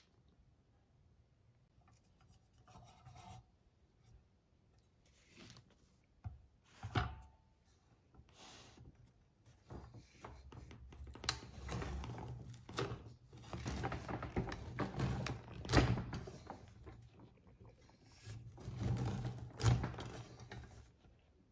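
Knocks and scraping of a bread cutter and its wooden parts being handled and worked, scattered at first and then near-continuous, with a few sharper wooden thunks.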